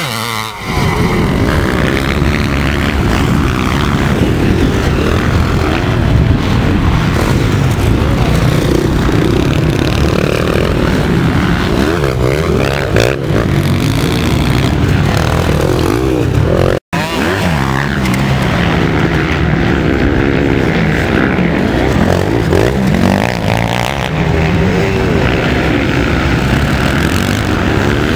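Vintage motocross motorcycle engines racing on the track, revving up and down as the riders accelerate and back off, with a momentary dropout about two-thirds of the way through.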